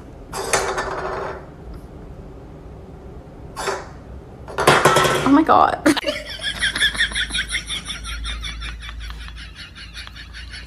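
A small dog snarling with bared teeth at a hand held in front of it, a rapid stuttering run of pulses from about six seconds in. Before it come a few short, louder noises.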